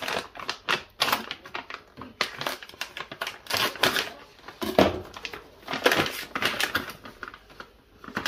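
Knife slitting open a plastic haggis packet, then the plastic pouch crinkling and crackling in irregular bursts as it is handled and pulled open.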